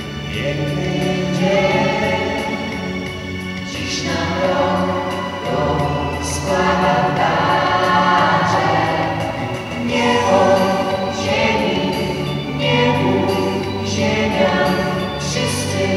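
A small mixed vocal group singing a Polish Christmas carol (kolęda) in parts, continuously throughout.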